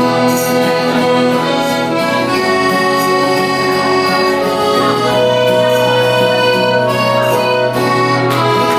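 Button accordion holding long sustained chords that change every few seconds, with an acoustic guitar strumming along in an instrumental folk passage.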